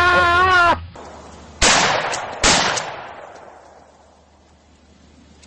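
A man's drawn-out yell, then two gunshots a little under a second apart, each fading away in a long echo.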